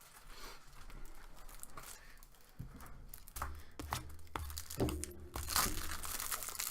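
Plastic wrapping crinkling and tearing, with scattered knocks from handling, getting louder in the second half.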